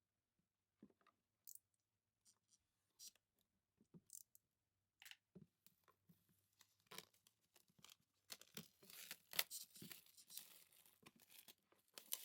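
Packaging being handled and opened, faint: scattered small taps and rustles, then from about eight seconds in a denser stretch of tearing and rustling.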